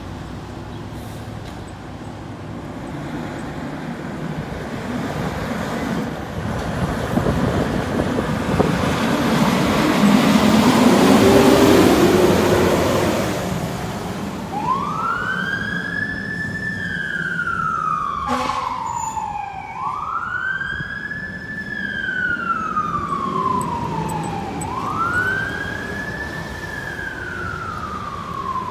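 A fire engine's engine and road noise build to a peak as it passes about 11 to 12 seconds in. About 14 seconds in its siren starts wailing, each cycle rising quickly and falling off slowly, three times, with a short knock near the middle of the siren.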